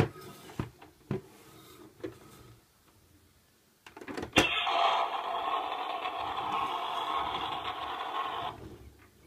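Plastic clicks as the body of a large Lightning McQueen toy car is pressed, then a sharper click and the toy's small speaker plays a recorded race-car engine sound effect for about four seconds, stopping abruptly.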